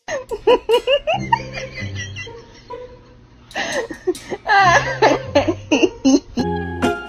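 Puppy whining and yelping in short, high cries that slide up and down, in two bouts, the second starting about three and a half seconds in, over background music.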